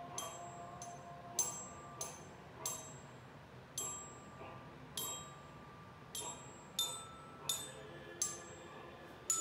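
Glockenspiel (a student bell kit) played with mallets: about a dozen single ringing notes struck one at a time at a slow, uneven pace, picking out a simple tune.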